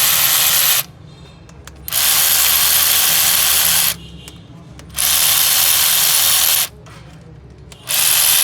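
A workshop power tool run in four short bursts of one to two seconds each, giving a loud hissing whir that starts and stops sharply, over a steady low hum.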